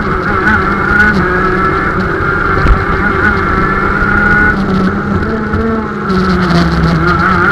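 KZ shifter kart's 125cc two-stroke engine running hard at high revs, heard on board. Its note drops back for about a second and a half after the middle, then comes on strong again near the end.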